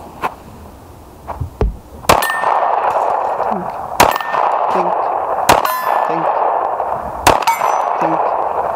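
Four 9 mm pistol shots from a Sig Sauer M11-A1, spaced about one and a half to two seconds apart, with steel plate targets clanging and ringing after the hits.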